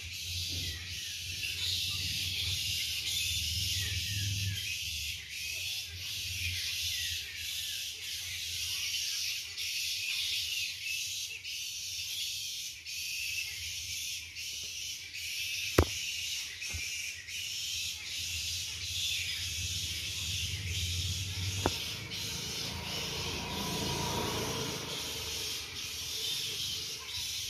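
Steady high-pitched drone of insects, lightly pulsing, with a sharp click a little past halfway and another fainter one later.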